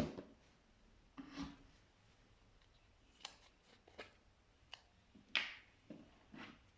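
Slime being squished and mixed: a run of short, separate sticky squishes and pops, about eight in all, the loudest about five seconds in.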